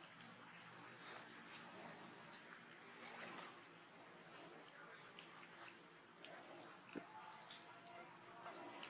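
Faint steady high-pitched trilling of insects in grass, with a few soft clicks and rustles.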